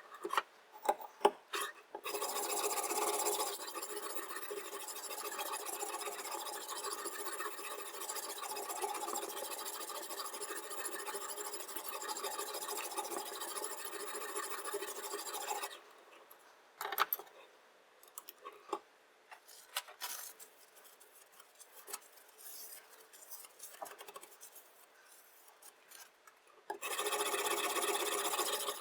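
Diamond sharpening stone scraping along a chef knife's edge in a guided sharpening system, one long continuous run of strokes. It pauses about halfway through with a few light clicks and knocks, then the grinding resumes near the end.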